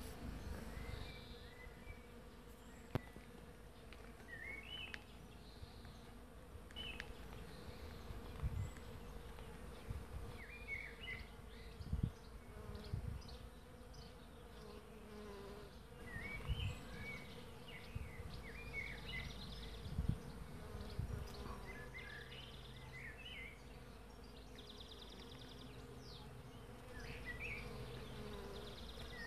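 Bees swarming in a flowering maple tree, giving a steady, even hum from the many insects working the blossoms. Short high chirps are scattered through it, and a few low thumps stand out, about twelve and twenty seconds in.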